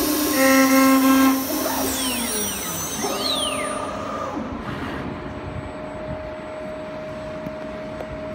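CNC wood lathe-mill motors running: a whine at several steady pitches that switch on and off for the first few seconds, gliding pitches about two to four seconds in, then a steady, quieter hum with one held tone.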